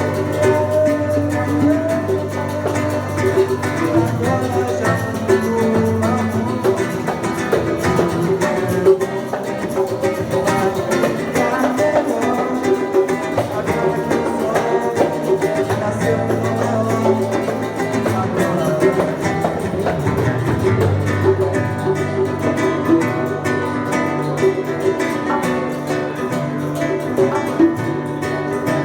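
Acoustic guitar (violão) playing continuously, a stream of plucked and strummed chords.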